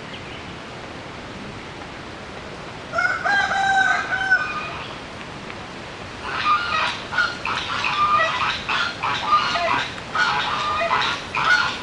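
A rooster crows once, a drawn-out call about three seconds in. From about six seconds domestic geese honk over and over in short, choppy calls that keep going.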